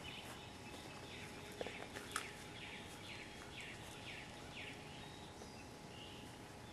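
A bird singing faintly, a run of about eight quick falling notes at roughly two a second, over a steady outdoor background hiss. Two sharp clicks stand out about two seconds in.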